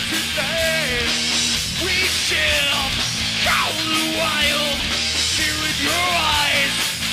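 A heavy rock band playing live and loud: distorted electric guitars, bass guitar and drum kit, with a singer's voice over it.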